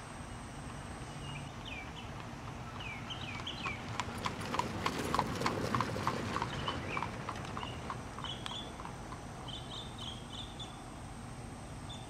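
Horse hooves clip-clopping in a steady rhythm, growing louder toward the middle and then fading away, with birds chirping before and after.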